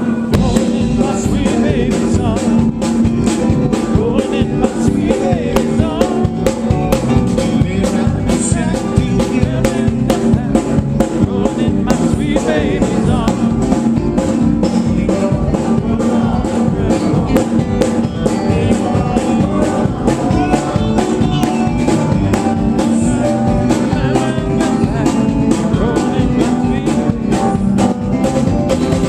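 Live band playing a song, with a drum kit keeping a steady beat under singing voices.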